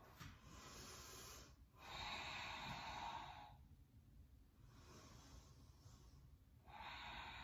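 Faint, slow, audible breathing of a woman holding a yoga pose, in and out through the nose. It comes as about four even breaths of a second and a half to two seconds each.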